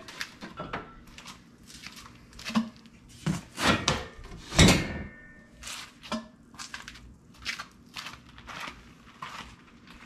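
Handling noise from a steel-framed packing crate as its top frame comes off: cardboard rustling and scraping, with several knocks and a heavy thud about four and a half seconds in. Lighter clicks and rustles of cardboard follow.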